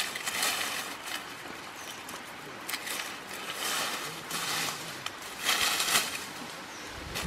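Dry bamboo leaves rustling in irregular bursts, with a few sharp crackles, as hands dig and pull through the leaf litter at the base of a bamboo clump.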